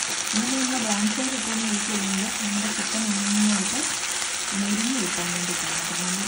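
Chicken pieces sizzling in a creamy sauce in a nonstick frying pan, a steady sizzle with a spatula stirring through the sauce. A low hum that wavers in pitch runs underneath.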